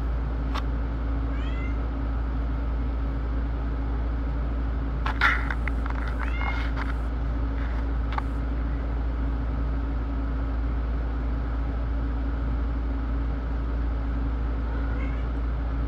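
Cat giving a few short meows, the loudest about five seconds in, over a steady low hum.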